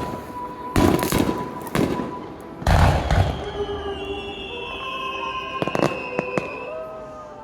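Aerial fireworks bursting: several loud booms in the first three seconds, the biggest about three seconds in, then quieter crackling and a long gliding tone that slowly falls.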